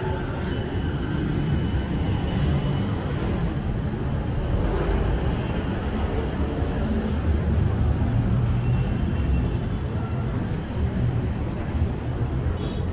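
City street traffic: motor vehicles running and passing in a steady low rumble that grows heavier about seven seconds in.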